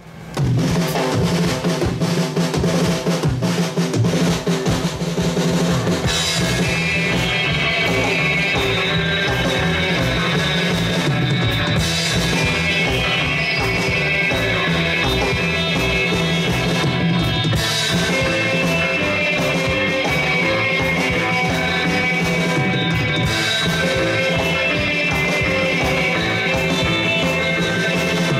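Live surf-rock instrumental played by a guitar, bass and drums trio. The first six seconds or so are a drum-heavy intro with rolls. After that the full band plays, with the electric guitar melody over bass and drums.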